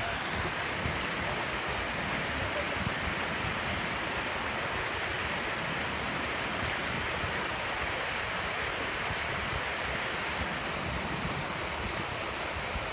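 Fountain jet splashing into a pond and water spilling over low stone weirs: a steady rushing of water.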